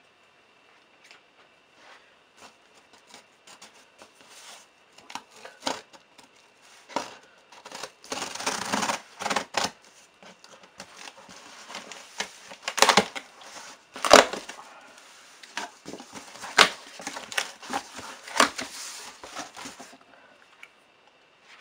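Scissors slitting the packing tape along a cardboard box's seam, then the box's cardboard flaps being pulled open and folded back, crackling with a series of sharp knocks. It starts with scattered faint clicks and gets busier and louder from about five seconds in.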